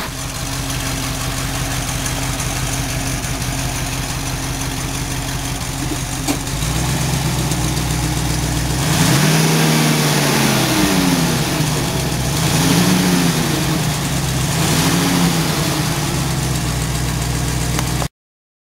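Mercedes-Benz 350 SL's V8 engine idling steadily, its note stepping up a little about a third of the way in, then three throttle blips that rise and fall, the first the longest. The sound cuts off abruptly near the end.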